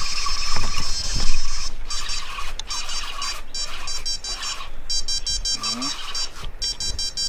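Electronic bite alarm on a catfish rod sounding as a fish takes line: a high-pitched electronic tone, continuous at first and then broken into rapid beeps.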